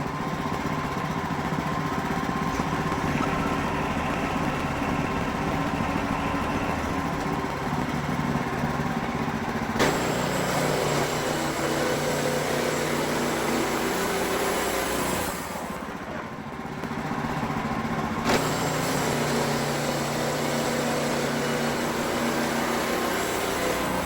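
Wood-Mizer LX55 band sawmill's engine running steadily while its band blade saws boards from a pine log, with a brief quieter spell about two-thirds through and a couple of sharp clicks.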